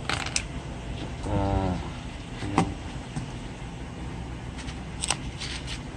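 Steady low rumble of motor traffic, with a few sharp clicks and taps from the cardboard phone box and its plastic tray being handled. A short wavering pitched sound comes about a second and a half in.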